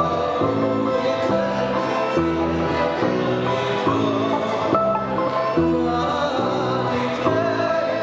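Live Russian folk dance tune on garmoshka, balalaika and balalaika-contrabass, the garmoshka holding chords that change in a steady dance rhythm, with a voice singing over the instruments.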